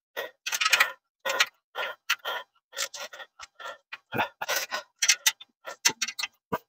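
Irregular metallic clicks and clinks of bolts and the metal bed frame's parts being handled and fitted together by hand.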